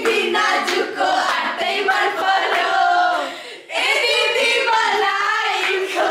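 Several voices singing and shouting together, loud and continuous, breaking off briefly about three and a half seconds in.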